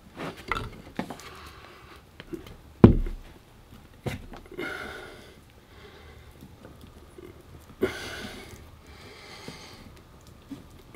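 Handling noises as a strap is wound and pulled tight around a flint adze blade on its wooden haft: scattered light taps and knocks, with one louder low thump about three seconds in. Heavy breaths through the nose come twice, in the middle and near the end.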